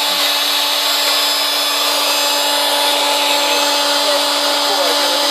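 Router spindle on a CNC machine running at a steady high-speed whine, its bit cutting a groove through plywood.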